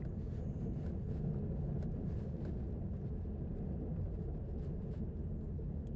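Chevrolet pickup truck's engine running steadily with a low drone as the truck pushes snow with its V-plow.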